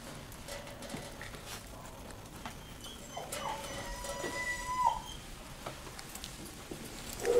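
Puppies whimpering: a thin, high whine held for about a second and a half, starting about three seconds in, over faint scuffling and light clicks of claws on a hard floor.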